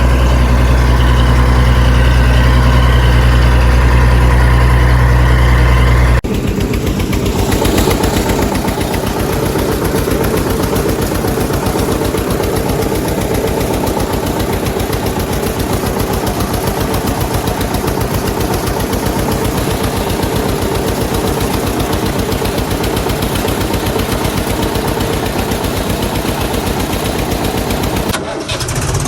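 Heavy engine idling with a deep, steady rumble, cutting abruptly about six seconds in to another engine running with a fast, even chatter. There is a brief break near the end.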